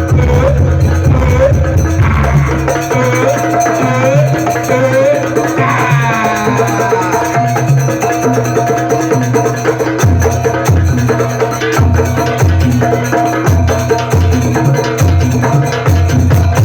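Live Javanese band music led by kendang hand-drum playing, with a melody gliding over it. The deep drum strokes drop back after about three seconds and return on a steady beat about ten seconds in.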